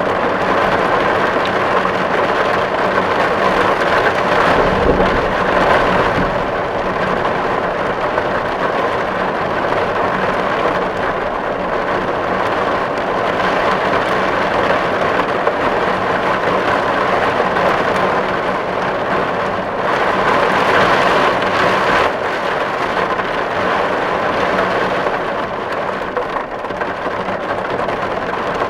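Steady, dense rain falling on a tin roof, the drops hitting the metal in a continuous patter.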